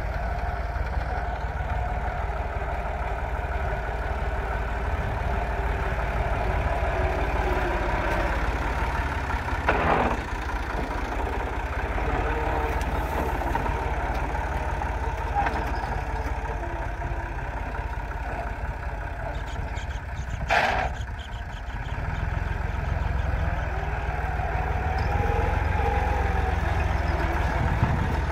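Massey Ferguson 260 tractor's diesel engine running steadily while it pulls a tine cultivator through the soil. Two brief sharp clicks come about ten and twenty seconds in.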